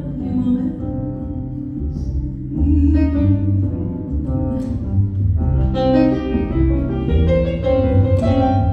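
Instrumental break of a live band with a strong, steady bass line under sustained melody notes, with no singing.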